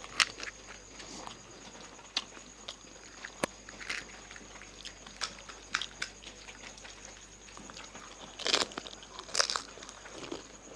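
Fuchka (pani puri) being eaten: crisp fried puri shells cracking and crunching between the teeth, with chewing, in irregular bites. A louder burst of crunching comes near the end.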